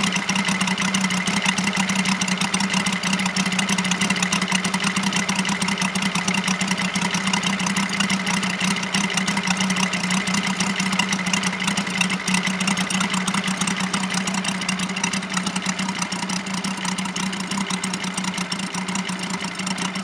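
Moki 150cc five-cylinder radial engine of a large RC model plane idling steadily, its propeller turning.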